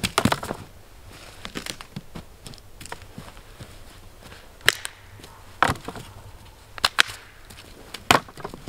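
Dry dead branches thrown and dropped onto a pile of sticks, knocking and clattering: a cluster of knocks at the start, then single sharp knocks about once a second in the second half, with quieter rustles and footsteps in snow between.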